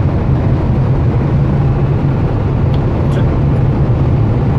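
Cabin noise of an Audi A6 diesel cruising at high speed: a steady low drone of engine, tyres and wind heard from inside the car.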